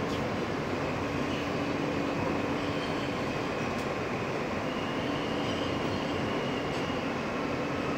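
Steady rumble and hum inside a New York City subway car, with a low hum that comes and goes.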